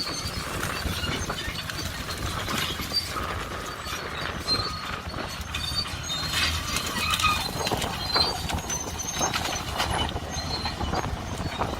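Two bulldozers dragging a chain stretched between them through brush: a low engine hum under irregular clanking, with short high squeals.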